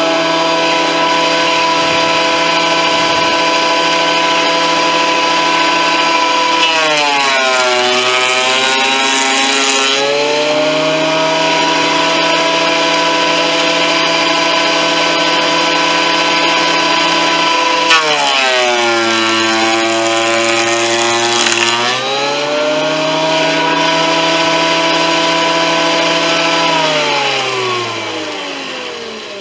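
Performax 12-1/2 in, 15 amp benchtop thickness planer running with a loud, high motor whine. Twice its pitch drops for about three seconds as it bogs under the load of a board being planed, then recovers. Near the end the whine glides down and fades as the motor is switched off and coasts to a stop.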